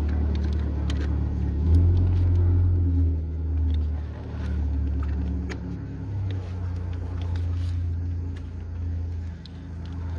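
A steady low mechanical rumble with a hum of several tones, like a running engine, with a few light plastic clicks scattered through it as wiring connectors are pressed onto a fuse box.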